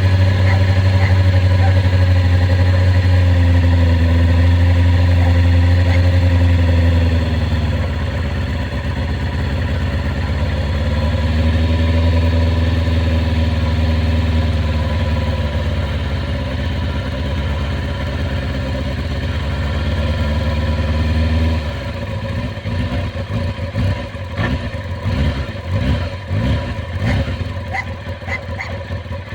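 1996 Kawasaki ZX-6R's inline-four engine idling through its exhaust, its speed drifting slowly up and down. About two-thirds of the way through, it switches to a run of quick throttle blips, each rev rising and dropping back, roughly one a second.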